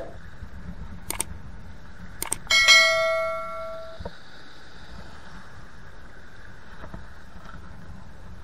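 Two sharp clicks, then a metallic ring about two and a half seconds in: a clear ringing tone with several pitches that fades over about a second and a half and is cut off suddenly. Steady background noise runs underneath.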